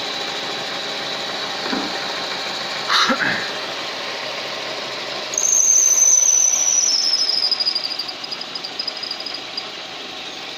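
A car's engine running steadily, with a brief noise about three seconds in; about halfway through a loud, high-pitched whistle cuts in, slowly drops in pitch and fades out. The whistle occurs only under load.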